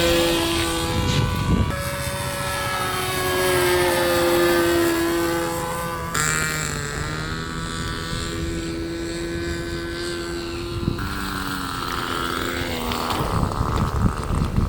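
Small RC model airplane engine driving a propeller, running at a steady pitch that jumps to new settings a few times, with one short glide in pitch. Wind-like noise builds near the end.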